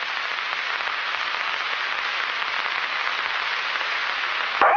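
Radio static hiss from the Apollo 1 crew communications recording, steady and slowly growing louder, with a sharp click near the end.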